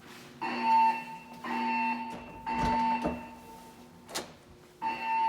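Siemens MXL-V fire alarm speakers sounding the temporal-three evacuation tone: three beeps of about half a second each, half a second apart, then a pause of about a second and a half before the next set of three begins near the end. A single sharp click falls in the pause.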